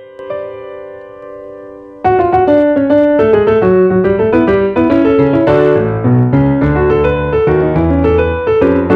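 Background piano music: a held chord fading away, then about two seconds in a sudden louder, busier passage of quick notes over a low bass.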